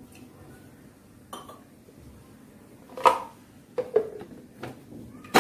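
A few knocks and clinks of a plastic mixer-grinder jar and its lid being fitted and pressed down, the loudest about three seconds in. Right at the end the mixer-grinder's motor starts up.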